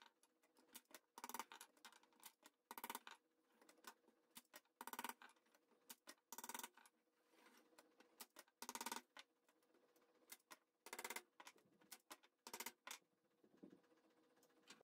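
Manual staple gun firing staples through chicken wire into a wooden picture frame: about seven sharp clacks, one every second and a half to two and a half seconds, with lighter handling clicks between them.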